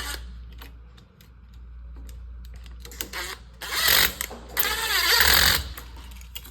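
Handling noises from wiring a wall light switch: scattered clicks, then two louder stretches of scraping and rustling about four and five seconds in.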